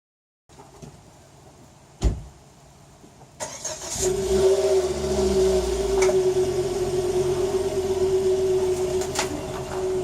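A thump about two seconds in, then the Volvo V50's engine starts at about three and a half seconds and runs steadily with a constant hum, as the car is readied to come off the ramps.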